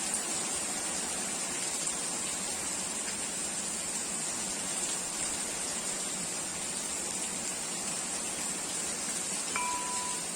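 Heavy rain falling, a steady even hiss. Near the end a short run of high, chime-like tones begins.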